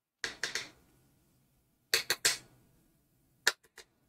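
Sharp clicks in three quick clusters of two or three each, spaced about a second and a half apart, the last cluster short and lighter.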